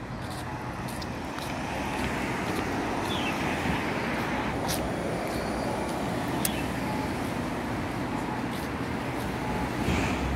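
Steady road traffic noise from passing cars, with a few sharp clicks on top.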